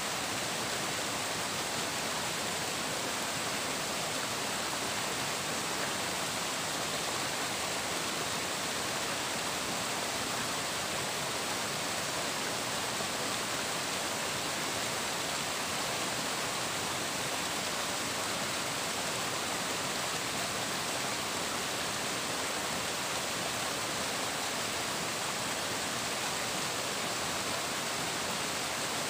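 Flowing water running steadily, an even rushing hiss with no changes and no other sounds standing out.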